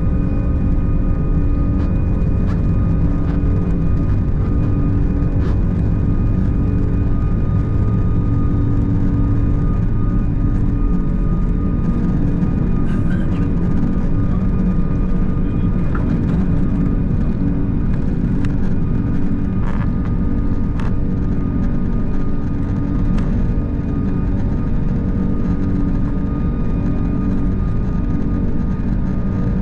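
Airbus A340-600's four Rolls-Royce Trent 556 engines running at takeoff power, heard from inside the cabin, with the rumble of the wheels on the runway. The deep rumble drops away about a third of the way in as the aircraft lifts off, and the engines carry on steadily into the climb.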